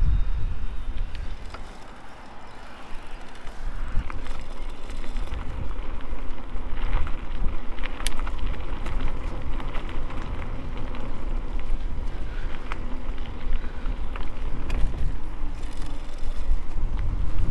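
Mountain bike being ridden over rough trail, with scattered clicks and rattles from the bike and a heavy low rumble of wind on the microphone. The noise dips briefly a couple of seconds in.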